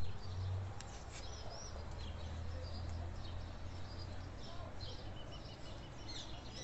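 Small birds chirping repeatedly, short high calls that grow busier toward the end, over a low steady hum.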